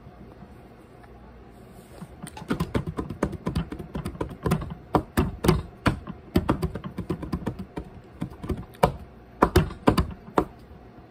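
A person chewing pizza close to the microphone: a fast, irregular run of sharp clicking and crunching chews that starts about two seconds in and stops shortly before the end.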